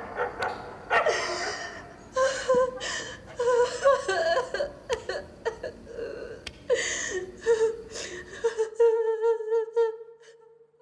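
A frightened woman gasping and breathing hard, with short whimpers and sobbing cries. Near the end her voice settles into a drawn-out, wavering whimper that fades away.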